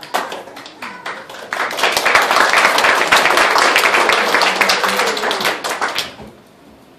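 Audience applauding: a few scattered claps, then a burst of dense clapping from about a second and a half in that dies away about six seconds in.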